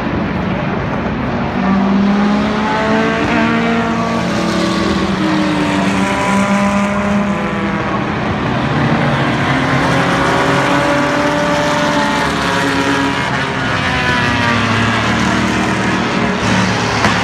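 Formula One car engines running at high revs past the track side. Several pitched engine notes overlap, rising and falling with gear changes and as the cars pass.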